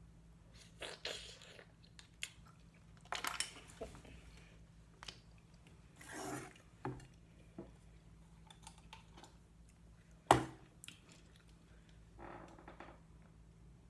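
Close-miked eating of a shrimp and mussel seafood boil: wet chewing and smacking in short bursts, with clicks of shells and utensils against the dish. The loudest moment is a single sharp clack about ten seconds in.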